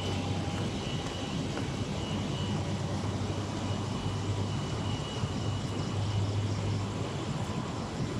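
Steady low rumble of city traffic engines, with a faint steady high-pitched tone above it.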